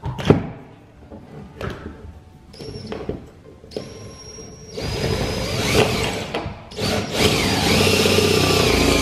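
Cordless drill boring into the sheet-metal roof of a pickup cab. Two short whining bursts come first, then from about halfway in the drill runs steadily under load, getting louder near the end.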